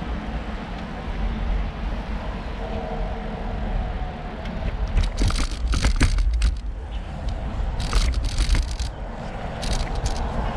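Wind buffeting the microphone of a moving bicycle rider, with a steady low rumble and several short bursts of hiss in the middle and near the end.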